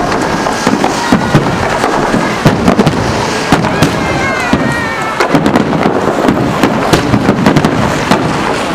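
Fireworks display going off: a dense, continuous run of bangs and crackling from bursting shells, with people's voices mixed in.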